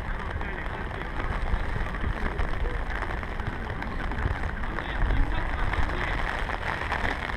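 Footballers' voices calling faintly across the pitch during play, over a steady low rumble and hiss of outdoor background noise.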